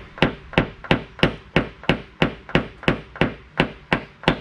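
Paintless-dent-repair hammer tapping a nylon-tipped knockdown tool against a car's fender at an even pace of about three taps a second. This knocks down the small crown, the high spot that the metal is pushed up into around a door ding.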